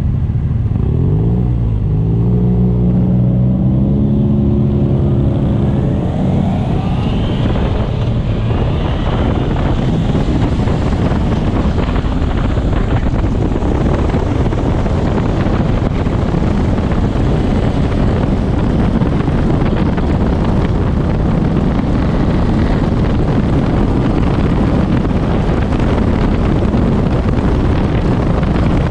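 Motorcycle engine pulling away and accelerating, its pitch rising over the first few seconds, then heavy wind noise on a helmet-mounted camera at road speed, with the engine running underneath.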